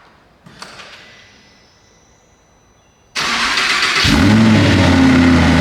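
Audi R8's 5.2 FSI V10 engine starting: a sudden loud burst of noise about three seconds in, then about a second later the engine catches and runs at a steady, loud idle.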